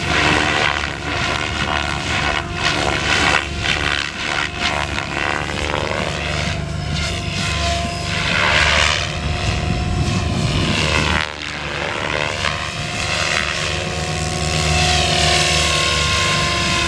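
SAB Goblin 630 electric RC helicopter flying hard 3D aerobatics: fluttering rotor-blade whoosh and chop, with a motor whine that rises and falls in pitch as it flips and passes.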